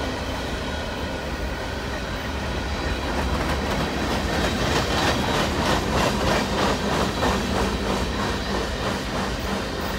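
Freight cars of a long mixed manifest train rolling past, their steel wheels clacking over the rail joints in a quick, uneven rhythm over a steady rumble. The clacking grows louder midway and eases near the end.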